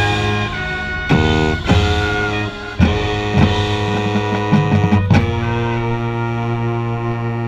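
Marching band playing its show music: held low chords with sharp drum hits about a second in, near three seconds and about five seconds in, and an electric-guitar sound from the front ensemble.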